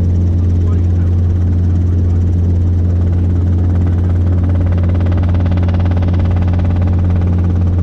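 Robinson R22 helicopter in flight, heard from inside the cabin: a loud, steady drone of engine and rotors with a strong low hum.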